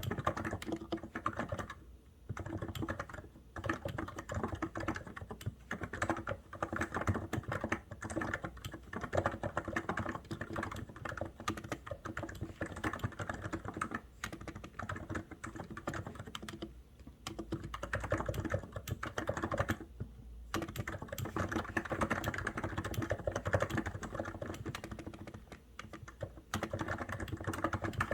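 Typing on a COX Endeavour computer keyboard: fast, continuous keystrokes, with a few brief pauses between bursts.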